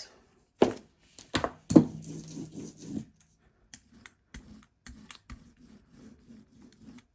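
A few sharp clicks and knocks of paint supplies being handled, followed by soft, repeated rubbing and tapping at about three a second.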